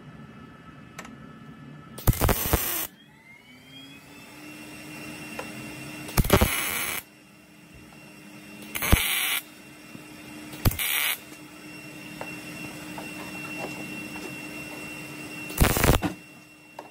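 Wire-feed MIG welder striking five short tack welds on a thin sheet-metal rust-repair patch, each arc burst lasting under a second. A steady hum runs between the welds.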